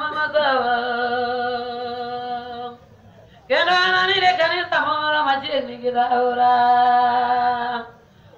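A single voice chanting a church prayer in long held notes: a phrase of about three seconds that glides down onto a steady note, a short pause, then a longer phrase of about four seconds that steps down in pitch and holds.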